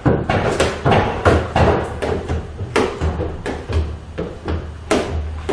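Plastic squeegees swiped across wet paint protection film on a car bonnet, pushing the slip solution out from under it: an irregular run of short, sharp scraping strokes, about two a second, over a low steady hum.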